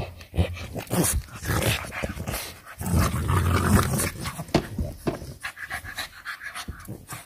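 English Bulldog puppies play-wrestling in a plush dog bed: heavy panting, with irregular scuffling and rustling against the bedding.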